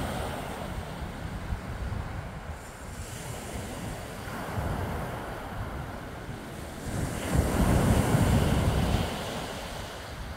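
Small waves breaking and washing up a pebble beach, rising and falling in swells: a smaller one about halfway through and the loudest about three-quarters of the way in.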